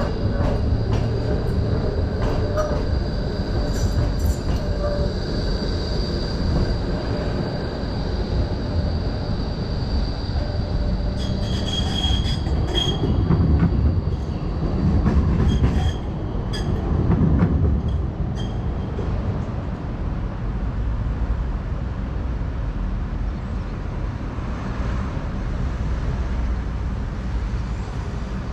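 Tram running on street rails, its wheels giving a high steady squeal for the first several seconds. Clicks and three low rumbles come through the middle, then a steady low rumble.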